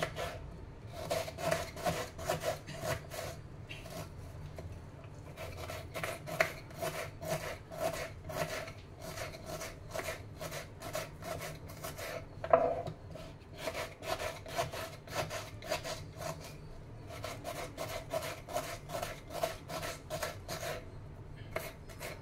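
Knife chopping a small onion on a wooden chopping board: quick, even strokes of the blade against the wood, about three to four a second, in runs broken by short pauses, with one louder knock a little past the middle.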